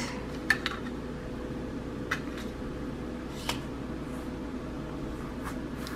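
Steady background hum with a faint thin tone, broken by a few light clicks and rustles of craft materials being handled.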